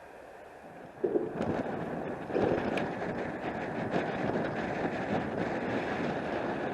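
Wind buffeting the microphone: a sudden gust about a second in, then an uneven rushing noise that swells and eases.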